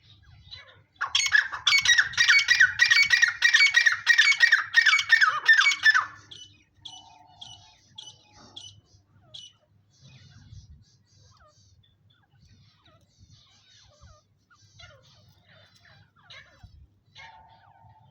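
Pet grey francolin (teetar) calling: a loud run of harsh, rapidly repeated notes lasting about five seconds, starting about a second in, followed by only faint chirps and squeaks.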